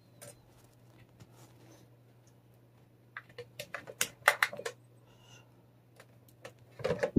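Scattered light clicks and ticks from hands handling a cat's paw and claws through a nylon mesh restraint bag, bunched into a quick run about three to four and a half seconds in. A brief low voice-like sound comes right at the end.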